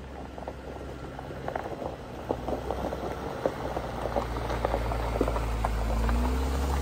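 Jeep Wrangler rolling slowly over a gravel dirt road: its tyres crackle and pop over loose stones while the engine's low hum grows steadily louder as it comes up, its pitch rising a little near the end as it passes close by.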